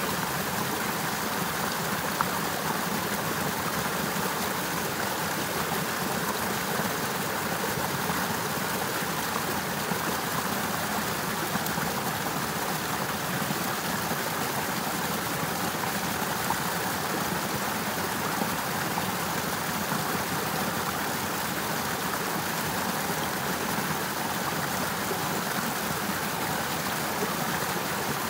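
Water of a partly frozen river running steadily under and around the ice, an even rushing that does not change.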